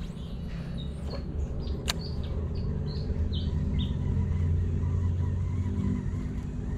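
A bird calling a run of short, high chirps from about a second in until nearly four seconds, with one sharp click near the middle, over a steady low rumble.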